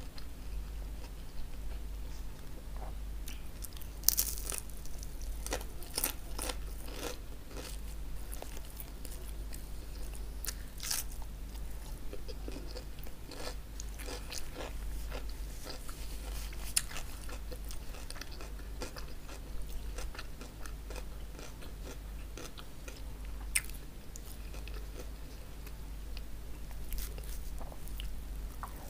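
Biting and chewing a crispy baked chicken hawawshi: crunches of the toasted bread crust come at irregular moments, the loudest about four seconds in, between quieter chewing. A steady low hum runs underneath.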